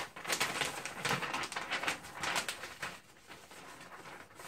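Paper instruction leaflet rustling and crinkling as it is folded and handled, in a quick run of crisp rustles that die down to quieter handling for the last second or so.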